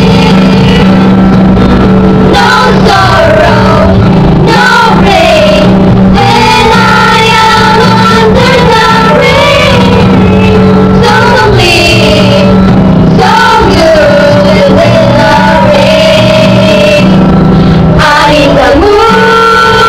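A song: a voice singing a melody over a steady, sustained accompaniment, loud and even throughout.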